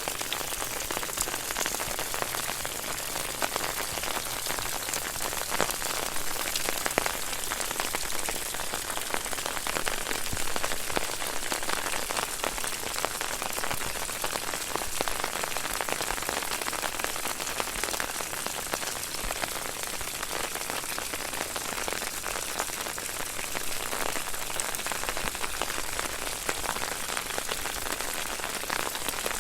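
Water fountain: falling water splashing steadily into a pool, a constant hiss made of many small droplet patters.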